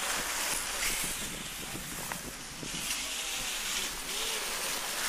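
Steady rushing hiss of outdoor noise with no clear pitch, with a few faint clicks.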